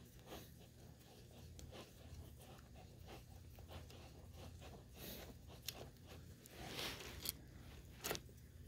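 Screwdriver turning out small screws on a Go-Ped racing engine's carburetor: faint scraping and light metal clicks, with a few sharper clicks near the end as the loosened carburetor part is handled.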